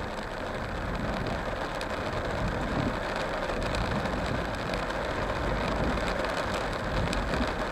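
Rain falling on a car's roof and windshield, heard from inside the cabin as a steady hiss with faint scattered ticks of drops, over the low hum of the car.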